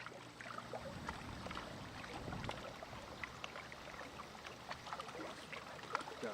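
Faint outdoor background noise: a low rumble through the first few seconds, with scattered small clicks and taps throughout.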